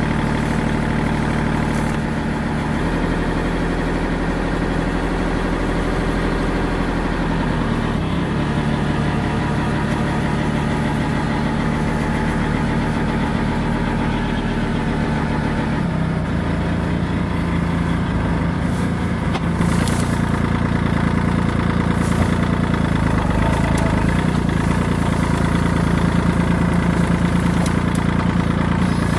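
Kubota L2501 compact tractor's three-cylinder diesel engine running steadily while it works the front loader through a brush pile. Its note shifts several times and grows louder over the last third.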